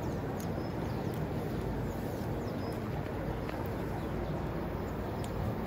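Steady low outdoor rumble, with a few faint ticks and a couple of faint short high bird chirps.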